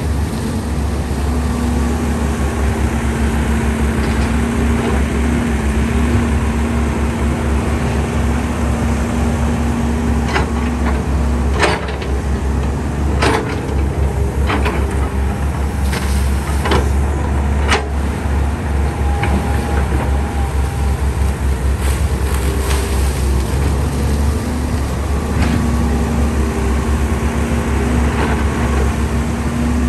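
Caterpillar 320D excavator's diesel engine running under load with a loud, steady low rumble and a steady whine while the arm and bucket work. A series of sharp knocks comes through the middle stretch, with a couple more later.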